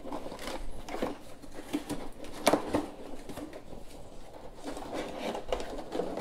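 Cardboard box insert rustling and scraping while a metal detector's plastic and metal parts are handled and lifted out of it, with small irregular knocks and one sharper knock about two and a half seconds in.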